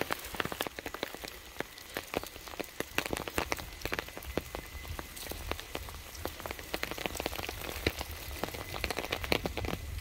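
Steady rain falling, with many sharp, irregular drop ticks landing close by.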